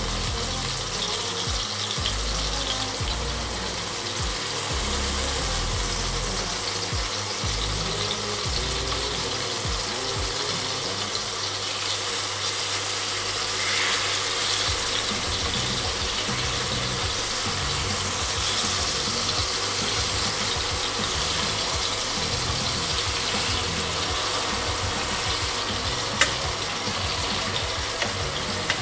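Banana halves frying in a pan with sugar, a steady sizzle throughout. Two sharp clicks near the end come from a fork knocking against the pan.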